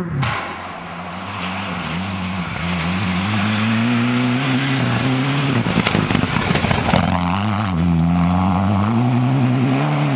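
Rally car engine at high revs, its pitch climbing and dipping with throttle and gear changes as the car slides past on a snow stage. A rough, crackling spell comes around the middle, as the car passes closest.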